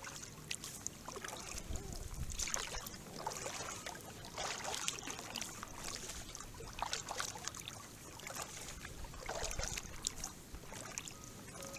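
Kayak paddle strokes: the blades dip and splash in the water, a splash every couple of seconds.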